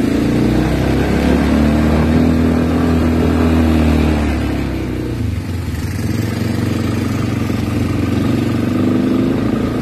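Small ATV (quad bike) engines running while riding along at low speed. The steady engine note eases off about halfway through, then picks up again near the end.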